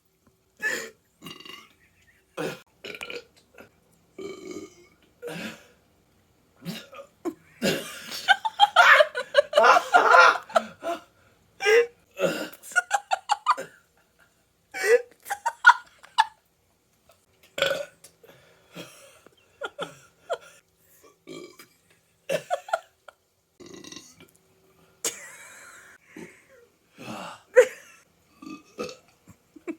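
A person burping over and over: a string of short, separate burps, with the loudest and longest run about eight seconds in.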